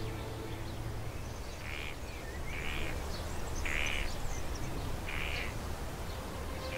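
A duck quacking four times, the calls about a second apart, over steady low outdoor ambience.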